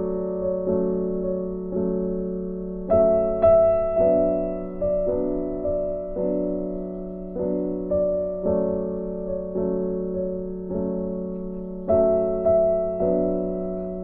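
Background music: a slow, gentle piano melody, each note struck and left to ring away.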